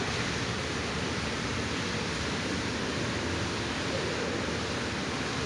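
Steady, even rushing noise of aquarium water circulation.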